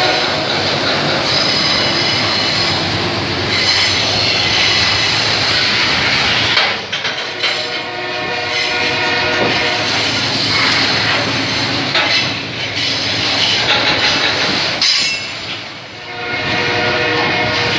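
Container freight train passing close by, its steel wheels rolling and clattering over the rails with a high-pitched wheel squeal coming and going. The loud, steady rumble dips briefly a few times as the wagons go by.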